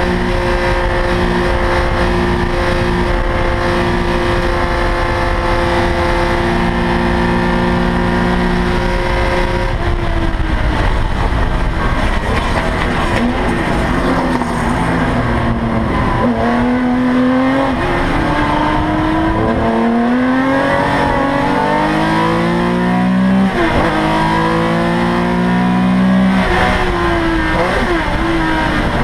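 Porsche 911 ST's air-cooled flat-six racing engine heard from inside the cockpit. It holds a steady high note at full throttle for about ten seconds, then falls away under braking. It then revs up through the gears in repeated rising sweeps, dropping in pitch at each upshift.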